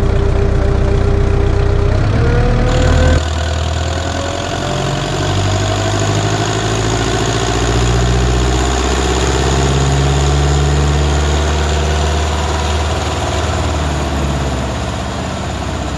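Ursus C-360 tractor's four-cylinder diesel engine working hard under dynamometer load with its turbocharger disconnected, its pitch slowly rising over most of the run. It is heard first from inside the cab, then, about three seconds in, from outside.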